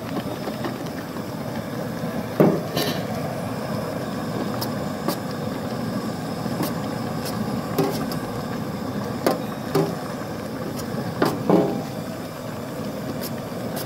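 Steady rushing noise of a propane burner under a large pot, with scattered sharp metal knocks and scrapes as cooked sausage is scraped off a metal sheet pan into the pot with a spoon.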